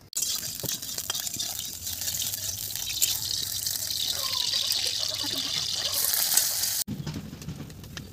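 Pot of water boiling hard over a wood fire: a loud, steady hiss with small bubbling ticks through it, cutting off abruptly near the end.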